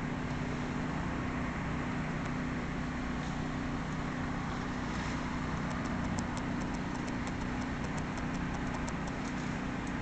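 An engine running steadily at an even speed, with faint rapid ticking or clicking in the second half.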